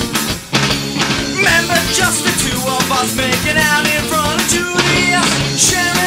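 Pop-punk band recording playing: guitars, bass and drum kit, with a short break about half a second in before the full band crashes back in, and a wavering melodic line on top.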